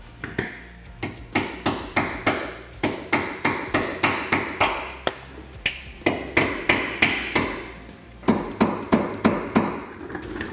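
Ball-peen hammer striking a steel pin punch in quick, sharp metallic taps, about three a second with a few short pauses, the last handful near the end hardest. The punch is knocking the centre pins out of drilled-out rivets so the factory skid plate can come off.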